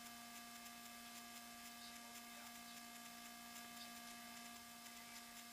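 Near silence with a faint steady hum made of a few fixed tones, and a few very faint ticks here and there.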